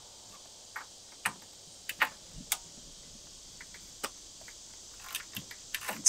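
Irregular sharp metallic clicks and clinks of hand tools working on the bulldozer's linkage, over a steady high buzz of insects.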